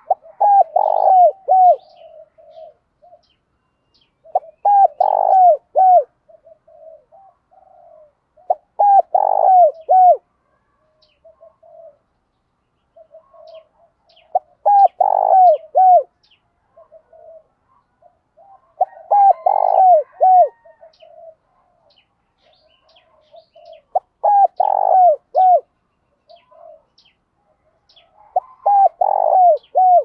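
Spotted dove cooing: a phrase of several short coos, repeated seven times about every four to five seconds, with softer coos in the gaps.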